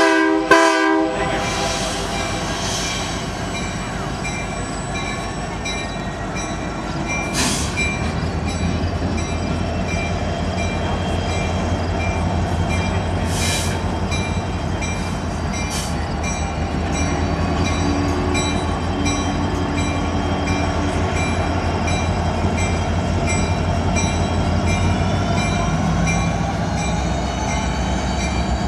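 Union Pacific diesel freight locomotives approaching along the track: a steady rumble of engines and wheels on rail that grows heavier about a third of the way in as the lead units draw close. A short horn blast is heard right at the start.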